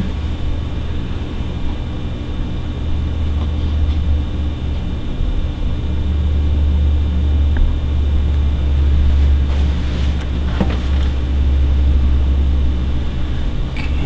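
A steady low hum of room background noise with a faint even buzz above it, unchanging throughout; no crying or other clear event stands out.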